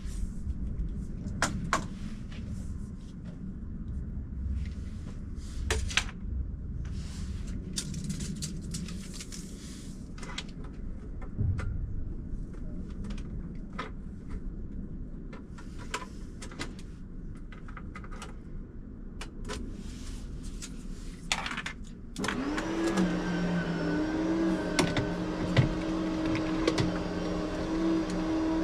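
Scattered knocks, clicks and short scraping noises over a low rumble. About three-quarters of the way through, a small motor starts and runs steadily, its pitch shifting slightly now and then.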